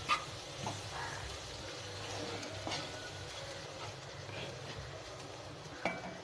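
Green chillies in gram flour frying on a low flame in a kadhai, a soft steady sizzle, with a spoon clinking and scraping against the pan a few times as it is stirred.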